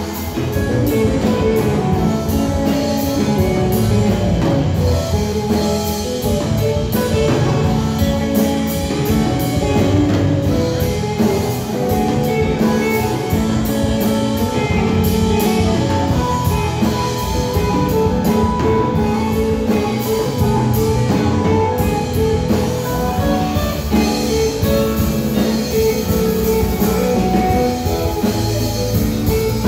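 Live rock band playing at full volume: electric guitars and electric bass over a drum kit.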